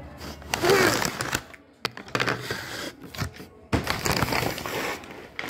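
Brown paper courier bag crinkling and rustling as it is picked up and handled, in several bouts of sharp crackles with short pauses.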